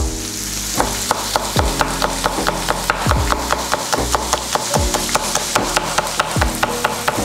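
A chef's knife slicing green onions on a wooden cutting board in quick, even strokes, about four to five cuts a second. Under it is the steady sizzle of marinated beef short ribs frying in a pan.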